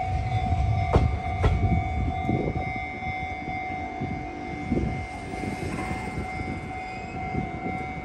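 Level-crossing warning alarm sounding steadily over the rumble of a Sotetsu 21000 series electric train, with a couple of sharp wheel clicks over rail joints about a second in; the train noise fades as it moves away.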